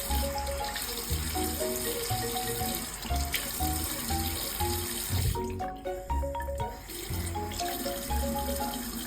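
Tap water running into a sink for a dog's face wash, stopping for about a second and a half a little past halfway, then running again. Background music with a bouncy melody and a steady beat plays throughout.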